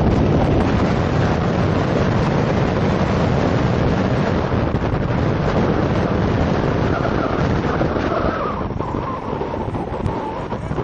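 Helicopter flying nearby: a loud, steady rushing rumble, with heavy wind buffeting the microphone.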